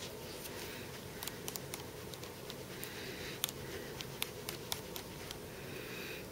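Faint handling sounds: small scattered clicks and taps with light rubbing as a lens-cleaning pad is worked over a phone's touchscreen.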